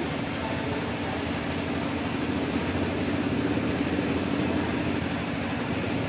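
A steady low mechanical drone that holds constant throughout.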